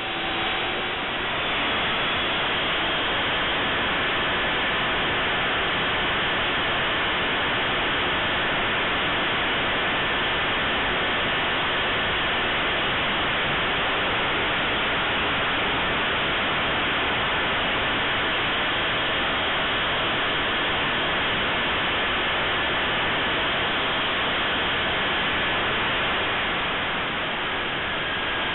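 The 70 mm electric ducted fan of a Durafly de Havilland Vampire RC jet running at steady high power, with airflow rushing past, heard through the small onboard camera's microphone as an even, hissing rush with a faint high whine.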